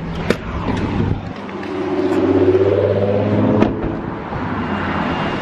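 Car driving slowly, engine and road noise, with an engine note that swells and rises, then falls away over a couple of seconds, and two sharp clicks: one near the start, one a little past halfway.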